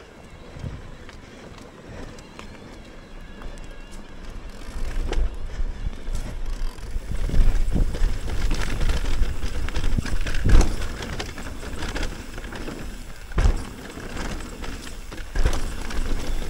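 Mountain bike riding down a rough, broken-up trail: steady tyre noise over dirt and rock, louder from about seven seconds in, with sharp knocks as the bike hits bumps around ten, thirteen and fifteen seconds in.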